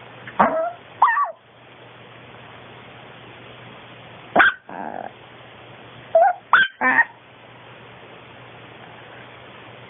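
Long-coat Chihuahua giving short, sharp yips and barks in three quick clusters: two near the start, one a little before the middle, and three in quick succession about two-thirds of the way through.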